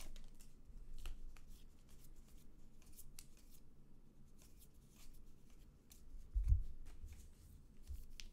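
Trading cards being flipped through by hand: soft, scattered flicks and clicks of card stock sliding over card stock, with one dull low thump about six and a half seconds in.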